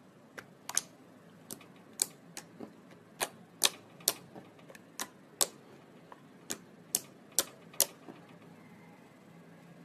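Slime being pressed and worked with the fingers, giving sharp popping clicks at an uneven pace, about two a second, which stop near the end.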